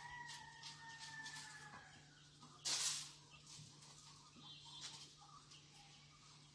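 Faint sound of chickens: a long, drawn-out call that falls slightly before ending about two seconds in, with scattered small clicks and chirps, over a steady low hum. A short burst of noise about three seconds in is the loudest moment.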